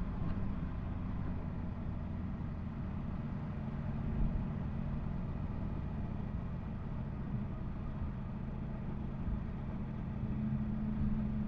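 Yamaha MT-10 SP's crossplane inline-four engine running steadily under way, under a haze of wind and road noise.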